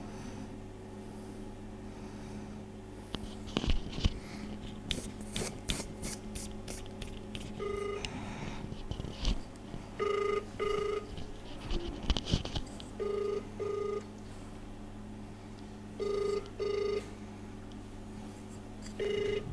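Ringback tone of an outgoing phone call: short double beeps repeating about every three seconds, preceded by a few seconds of clicks and knocks.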